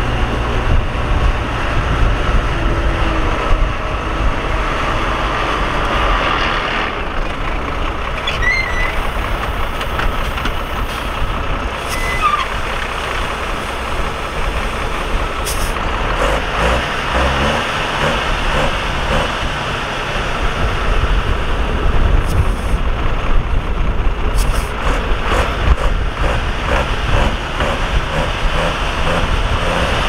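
Heavy diesel earthmoving machinery running with a steady engine rumble. The revs rise briefly about halfway through. There are a few sharp clanks, and in the second half a regular ticking about twice a second.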